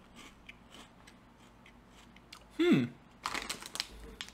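A short falling vocal hum about two-thirds in, then the crinkling of a plastic snack pouch as it is picked up and tipped, a quick run of crackles over the last second.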